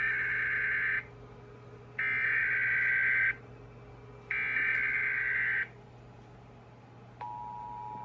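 Emergency Alert System SAME header: three bursts of digital data tones, each a little over a second long with a pause between, encoding the Required Monthly Test alert. About seven seconds in, the steady two-tone EAS attention signal (853 and 960 Hz) starts.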